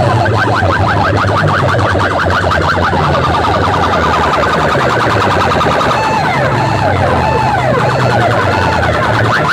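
Siren-like electronic effect blasted at full volume through a massed rig of horn loudspeakers: rapid, repeating rising chirps over a heavy bass, with slower warbling siren tones coming back in about six seconds in.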